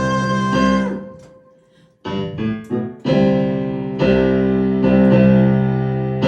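Piano playing the closing chords of a song. A held chord dies away in the first second, then a few short chords lead into two long held chords, the last ending right at the close.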